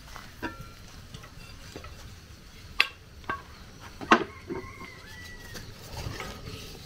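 Wooden stirring stick working thick cocoyam fufu dough in an aluminium pot, with scattered knocks of the stick against the pot, the loudest about four seconds in.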